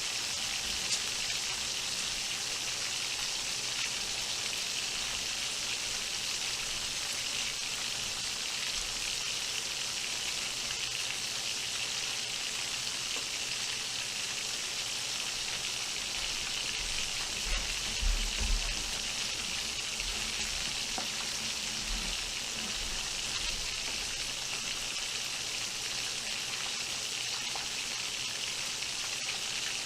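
Whole chicken frying in hot oil: a steady sizzle. A few brief low bumps come about two-thirds of the way through.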